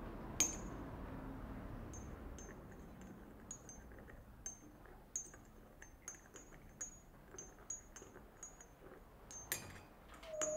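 A teaspoon clinking against a white china coffee cup while stirring: a faint, irregular run of light ringing clinks, about one or two a second, with a sharper clink about half a second in.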